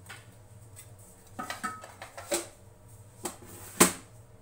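Metal kitchen utensils clinking and knocking: a cluster of clinks with a short metallic ring, then a few separate knocks, the sharpest near the end.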